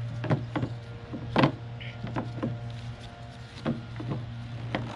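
Plastic clicks and knocks, about eight in all with the loudest about a second and a half in, as the bulb-access cap is fitted and closed on the back of a 2014 Cadillac SRX headlight housing. A steady low hum runs underneath.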